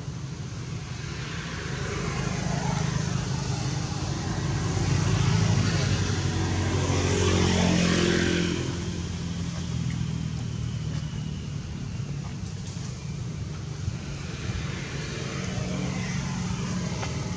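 A motor vehicle driving past over a steady low rumble. Its engine note swells to its loudest about six to eight seconds in, then fades.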